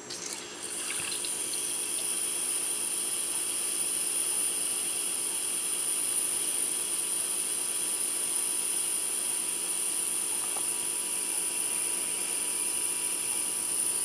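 Draught beer pouring from a kegerator tap: a steady high hiss of beer running out of the faucet, starting after a few clicks near the beginning.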